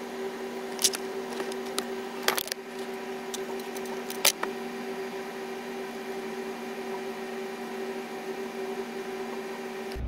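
Steady low machine hum, two held tones with overtones, with a few sharp clicks and taps over the first four or five seconds.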